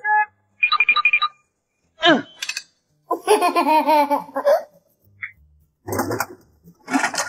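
A string of short cartoon sound effects with silent gaps between them. There are quick beeps and chirps, a falling pitch glide about two seconds in, and a baby's giggle, whose wavering pitched run lasts about a second and a half.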